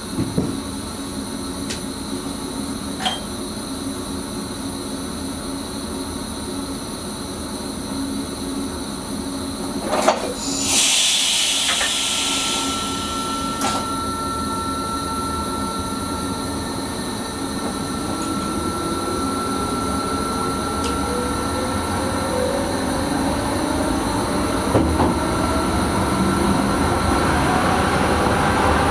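Electric Sprinter train heard from the driver's cab: a few sharp clicks, then a burst of air hiss about ten seconds in. From the middle on, the traction motors whine steadily higher as the train pulls away and gathers speed.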